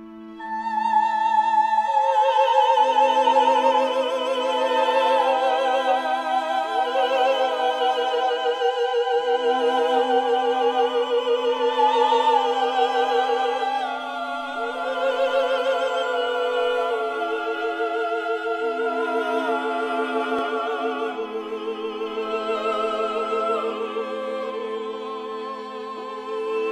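Background music: an operatic voice singing long, held notes with vibrato over an orchestral accompaniment, swelling in about a second in.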